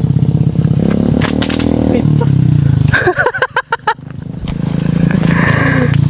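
Small motorcycle engine idling close by, with a quick, even low pulse. A short burst of talk cuts in about three seconds in.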